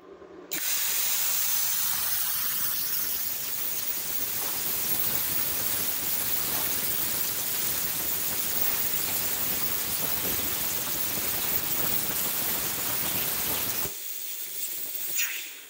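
Vevor Cut 50P plasma cutter cutting 3/16-inch steel flat bar at 30 amps and 50 PSI: a steady hiss of the plasma arc and air jet. It cuts off suddenly near the end, as the machine pops its 20-amp breaker.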